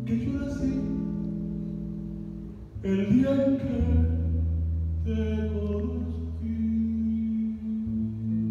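Live band playing a slow ballad: held guitar chords over a deep bass line, the chord changing about every two to three seconds.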